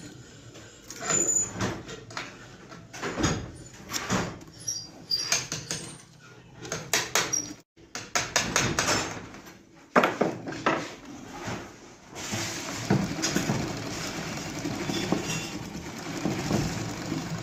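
Newly assembled sewing machine stitching a strip of cloth as a test run: a rapid mechanical clatter of the needle and drive mechanism in several runs with short breaks, the last run the longest and most even.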